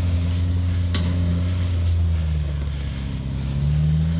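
Rock buggy's engine pulling under load on a rock climb, its pitch sagging about two seconds in and picking back up near the end.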